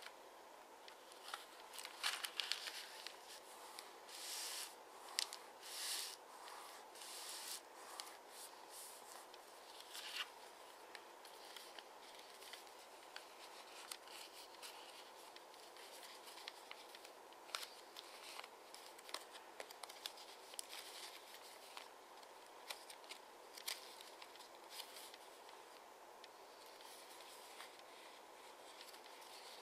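A square of origami paper rustling and crinkling as it is folded and creased by hand. A run of short swishes comes in the first several seconds, followed by sparser faint crackles and ticks.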